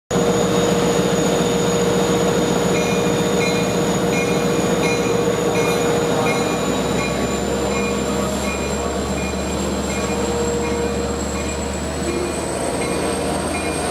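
LIRR DM30AC diesel locomotive pulling a departing passenger train, its engine running loud and steady and its low rumble building about halfway through. A high-pitched tick repeats about twice a second from a few seconds in.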